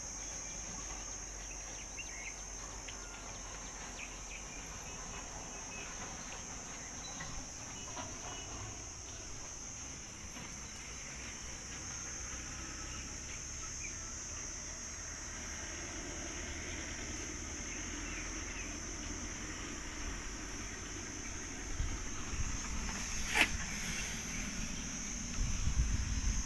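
Steady high-pitched chirring of insects in the surrounding vegetation. A few low bumps and one sharp click come near the end.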